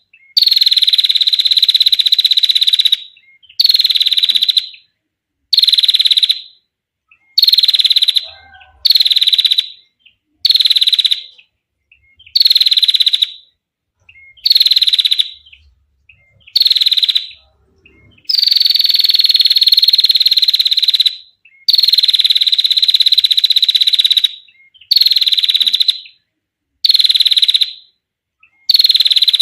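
Female prinia (prenjak) giving its long, rapid, clear trill. It repeats about a dozen times in bursts of one to three seconds with short pauses between, each burst sliding slightly down in pitch.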